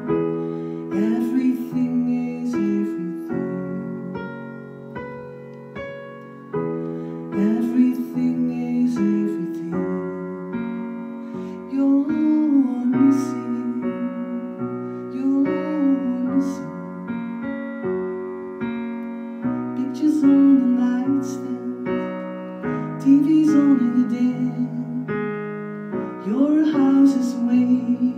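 A woman singing while accompanying herself on a keyboard piano. Held chords change every second or two under her sung phrases.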